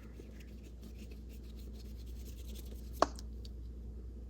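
Faint paintbrush strokes rubbing across paper, with one sharp tap about three seconds in.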